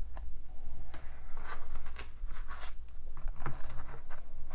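Tarot cards handled and gathered into a stack: irregular papery scrapes and light clicks of card stock sliding and tapping together, over a steady low hum.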